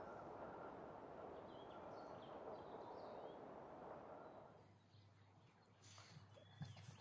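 Faint bird chirps, a few short rising calls, over a steady rushing hiss. About four and a half seconds in the hiss drops away, leaving quieter outdoor ambience with light rustling and a few soft knocks near the end.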